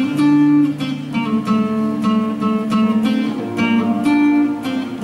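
Solo acoustic guitar being played: a picked melody of single plucked notes over held low bass notes.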